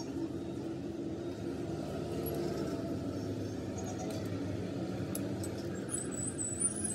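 Steady low mechanical hum, with a few faint metallic clinks and a brief high ring near the end as small metal pump parts are handled.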